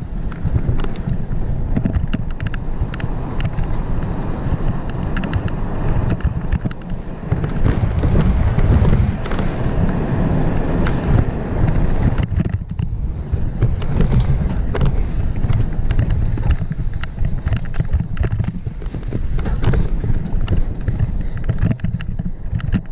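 Wind buffeting the microphone of a helmet-mounted camera as a full-suspension mountain bike speeds down a dirt trail, over the constant rattle and clatter of the bike and its tyres on the rough ground.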